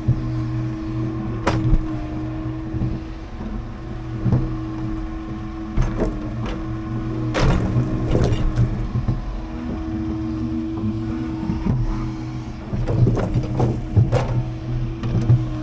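Scania timber truck's diesel engine running steadily, with scattered knocks and clanks over it, several in a cluster about halfway through and again near the end.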